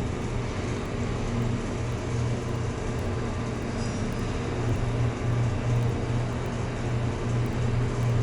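Schindler 300A hydraulic elevator car travelling, with a steady low hum and ride noise.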